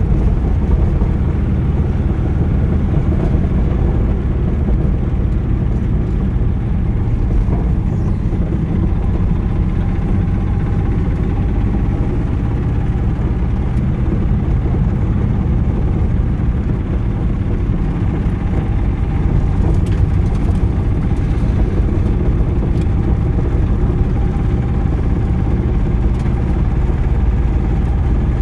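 Motor vehicle driving: a steady drone of engine and road noise, heaviest in the low end, with a faint steady whine above it.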